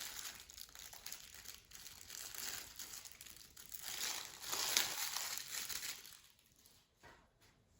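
Crinkling and rustling of something crinkly being handled, irregular and loudest about four to five seconds in, dying away near the end.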